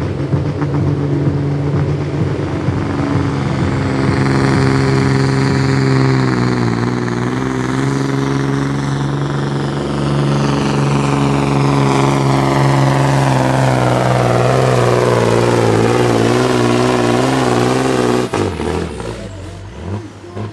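Diesel pulling truck engine running flat out under the heavy load of the brake sled, with a high whine that slowly falls in pitch and then climbs again. About 18 seconds in the engine note drops off sharply and the run winds down.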